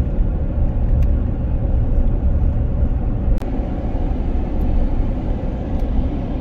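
Car cabin noise while driving: a steady low rumble of tyres and engine, with a few faint clicks.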